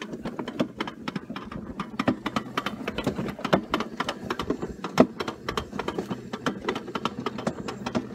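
Alpine coaster sled running on its metal rail track: rapid, irregular clicking and rattling over a steady low hum.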